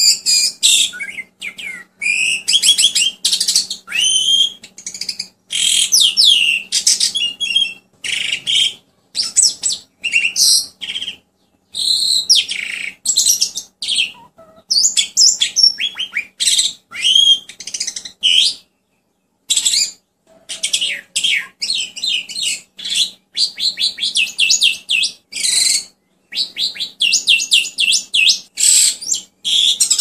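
Javan pied starling (jalak suren) singing a fast, varied song of chirps, sweeping whistles and rapid trills in short phrases, with two brief pauses. A faint steady hum lies underneath.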